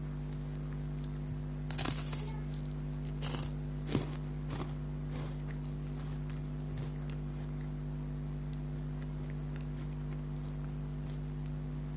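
Chocolate biscuits crunching as they are bitten and chewed close to the microphone. A cluster of loud crunches comes about two seconds in, with a few more around three to five seconds, then only small faint clicks. A steady low hum runs underneath.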